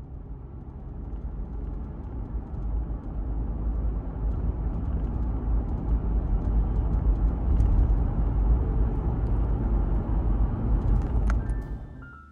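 Road noise of a car driving along a street: a steady, deep rumble that builds slightly, then fades away near the end.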